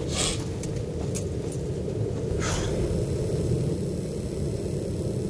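Steady low rumble of wind on the microphone, with a couple of soft brief rustles near the start and about halfway through; no shot is fired.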